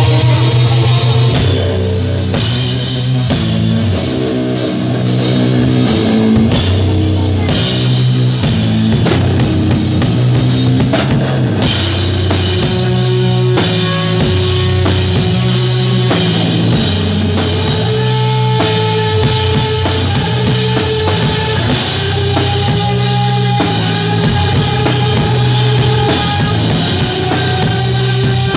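Rock band playing live and loud: a drum kit with bass drum and cymbals driving a steady beat under electric guitars and a moving bass line.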